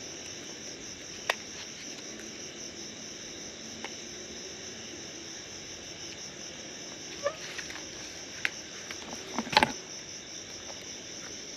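Crickets and other night insects trilling steadily, a constant high-pitched chorus. A few sharp crackles break in now and then, the loudest a quick cluster near the end.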